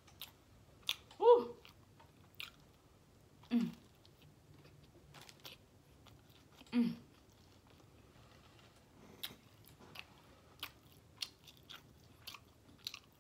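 A person chewing mouthfuls of a sub sandwich close to the microphone, with many small sharp mouth clicks and smacks. Three short hums fall in pitch about a second in, around three and a half seconds in, and near the middle; the first is the loudest.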